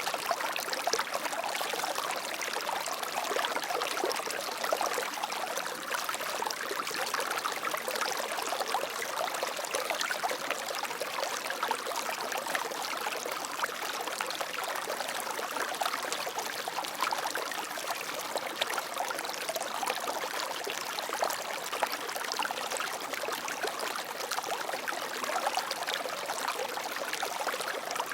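Water flowing in a stream, a steady splashing, trickling rush.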